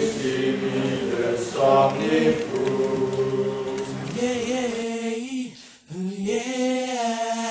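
Unaccompanied choir singing held chords. After about four seconds it gives way to a small group of voices singing a wavering line together, which breaks off briefly near the end.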